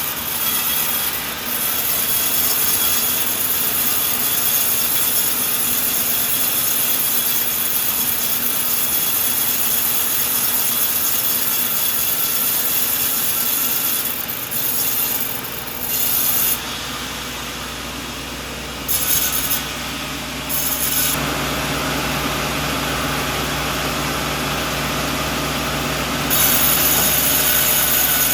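Sawmill blade cutting through a coconut log, a continuous sawing noise. Around the middle the cut's higher hiss drops away for a few seconds at a time, a steady low machine hum comes in after that, and it gets louder again near the end.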